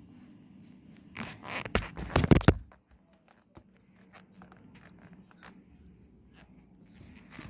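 A curtain pushed aside close to the phone: fabric rustling and scraping loudly for about a second and a half, then a few faint clicks.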